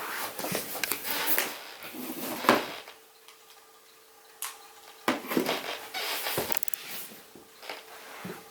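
Hard plastic parts of a Crane ultrasonic humidifier being handled: irregular clunks and rattles as the water tank and base are set up. The loudest knock comes about two and a half seconds in, then a brief pause before more clattering, over a faint steady hum.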